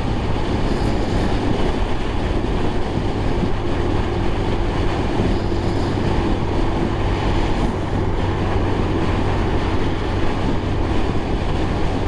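Steady riding noise from a Honda Fan 160 motorcycle at speed: wind rushing over a helmet-mounted microphone, with a steady low engine hum underneath.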